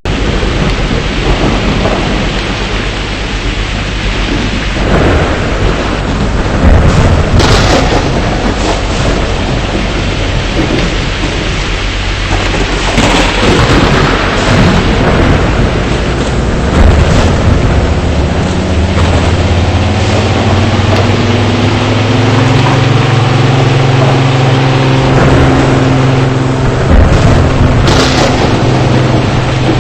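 ACA Alerter outdoor warning siren during a test, heard through loud rumbling noise. From about two-thirds of the way through, low tones begin rising slowly in pitch as the siren winds up, then hold steady near the end.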